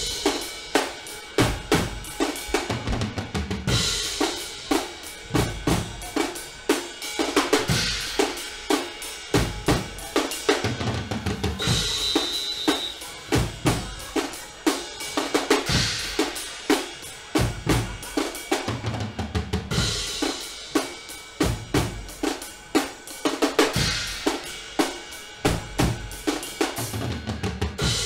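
Guggenmusik drum section playing a fast, driving beat: bass drums, snare drums and cymbals striking many times a second.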